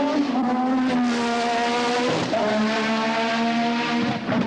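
Ford-Cosworth 1.5-litre twin-turbo V6 Formula One engine running hard at high revs, a steady high engine note that breaks off briefly about halfway and again near the end.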